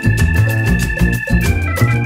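Dance music with a steady beat, a pulsing bass line and long held high notes.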